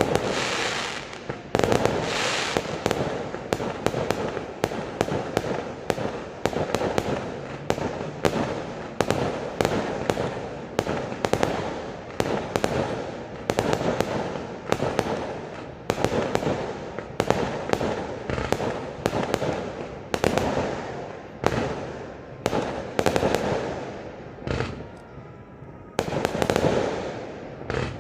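Fireworks going off in a rapid barrage, several sharp bangs a second over a crackling haze, thinning briefly a few seconds before the end.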